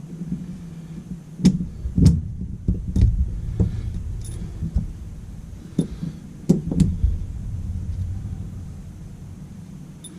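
Motorcycle fork parts knocking and clicking together by hand, about ten sharp knocks and clinks at uneven intervals, as washers and fork seals are slid onto the fork tubes, over a low steady rumble.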